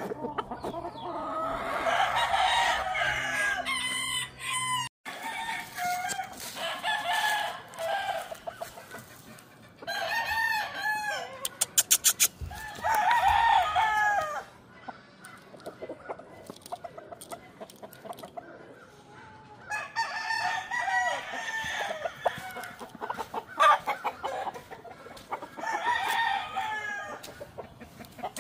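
Roosters crowing one after another, a long crow every few seconds, with chicken clucking in between. About twelve seconds in comes a quick run of sharp clicks.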